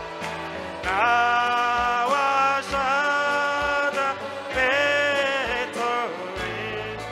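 Gospel praise-and-worship music: a voice sings long notes that bend in pitch, over a band with a steady drum beat.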